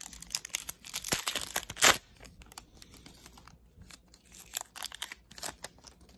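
Foil wrapper of a Panini Mosaic football card pack being torn open by hand: a dense run of tearing and crinkling over the first two seconds, sharpest just before the two-second mark, then scattered crinkles as the wrapper is handled.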